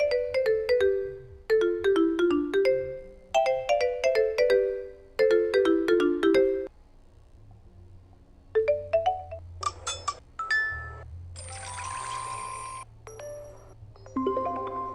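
Electronic ringtone chimes: a short falling run of bell-like notes repeated several times. After a pause come a string of short jingles and beeps, with a brief hissing burst among them.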